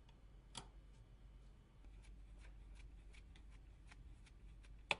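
Faint ticks and clicks of a small Phillips screwdriver turning a tiny size 00 screw out of a Nokia E7-00 phone. Two sharper clicks come, one about half a second in and one at the very end.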